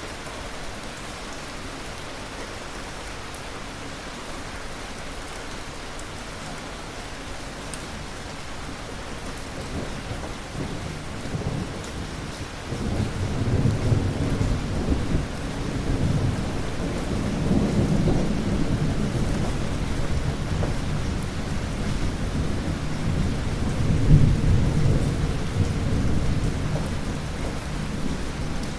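Steady rain falling, with rolling thunder that starts about halfway through and rumbles on in swells, loudest a few seconds before the end.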